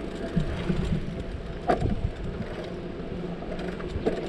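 Steady rumble of bicycles rolling over pavement, with two short sharp knocks, about two seconds in and near the end.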